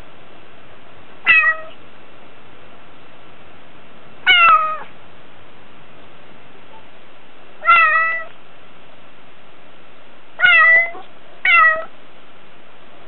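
Domestic cat meowing five times, each call short and falling in pitch, spaced a few seconds apart with the last two close together: a lonely meow calling for its people.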